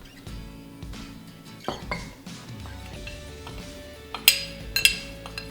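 A spoon clinking against a mug while flour is spooned in: a few light knocks about two seconds in, then two sharp ringing clinks near the end. Background music plays throughout.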